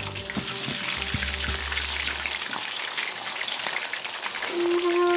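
A whole marinated fish deep-frying in hot oil in a wok, with a steady sizzle full of fine crackles and pops.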